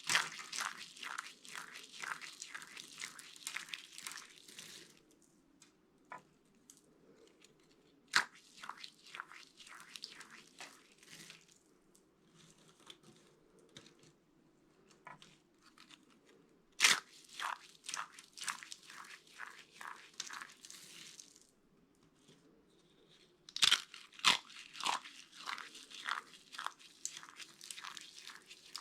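Dry soap being crushed: crisp crunching and crackling in several bursts of a few seconds each, most opening with a sharp crack, with short quiet gaps between.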